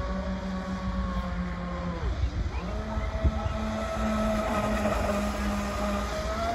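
Large electric RC catamaran's brushless motor whining as the boat runs across the water. The whine falls away about two seconds in, then climbs again and holds, edging higher near the end, over a low rumble.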